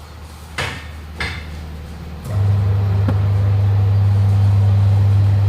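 Two sharp knocks, like hammer blows on metal, about half a second apart. About two seconds in, a machine starts up with a loud, steady low hum.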